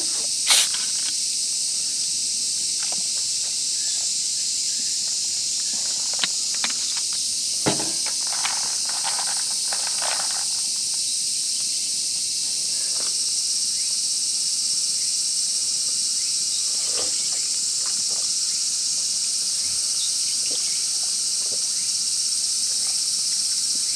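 Steady, high-pitched buzzing of summer insects in the woods, with a few short clinks and knocks from the glass of ice being handled, the loudest about half a second in.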